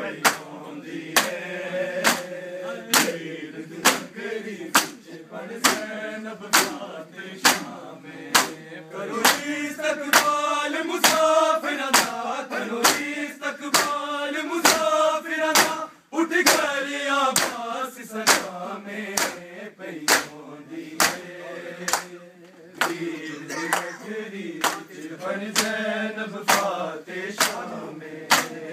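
Men chanting a Muharram lament (nauha) together while beating their bare chests with open palms in unison: a sharp slap roughly every two-thirds of a second, keeping time with the chant. There is a brief break about halfway.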